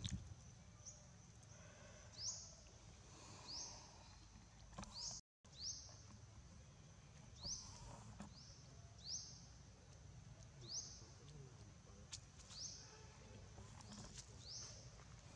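Faint outdoor ambience. A small animal's high chirp, rising quickly in pitch, repeats about once a second over a steady high whine. A few soft taps and rustles are heard.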